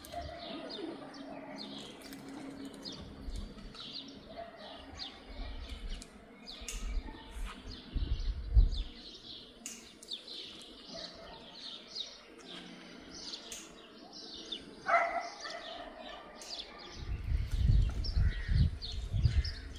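Small birds chirping repeatedly, with a few low rumbles about eight seconds in and again near the end.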